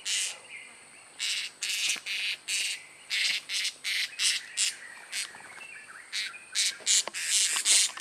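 Blue-crowned hanging parrot (serindit) held in the hand while being untangled from a mist net, giving a string of short, shrill squawks, two to three a second with brief pauses: the alarm calls of a captured bird being handled.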